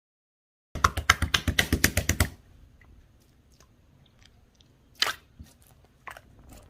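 Large jelly-textured slime being squeezed and pressed by hand: a fast run of sharp, wet popping clicks starting about a second in and lasting about a second and a half, then scattered softer pops and crackles.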